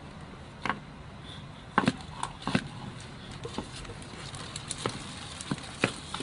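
Irregular sharp clicks and knocks, about ten spread unevenly over the few seconds: the shells of mating turtles knocking together.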